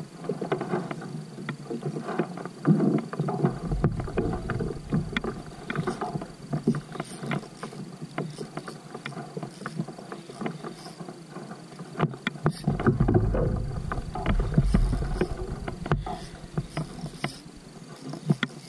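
Spinning reel being cranked against a hooked fish from a kayak, with irregular clicking and rattling of reel and tackle. Two stretches of louder low rumbling come a few seconds in and again past the middle.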